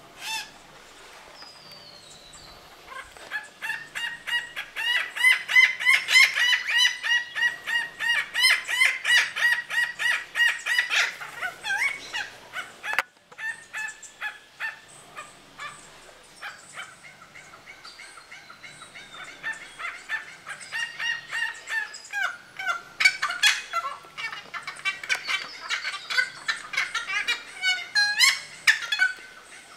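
Large honeyeaters calling loudly: harsh, rapidly repeated notes, about three a second, in two long bouts with a short break in the middle.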